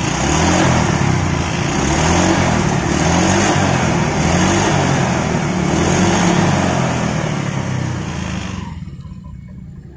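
Honda Vario 125 scooter engine revved up and down in waves, its pitch rising and falling. The engine is being run hot to test whether the coolant still boils over after a radiator repair. The revs ease off about eight and a half seconds in.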